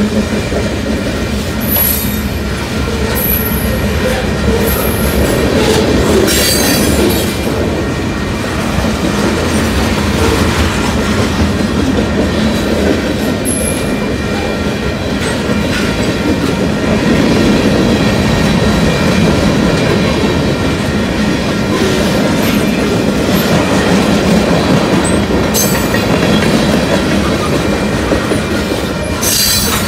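Union Pacific freight train's cars rolling past at speed: a steady, loud rumble and clatter of steel wheels on the rails, with brief high squeals from the wheels now and then.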